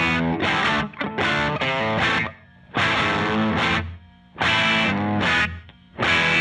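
Rock music with distorted electric guitar, played in stop-start chord blocks with short breaks between them.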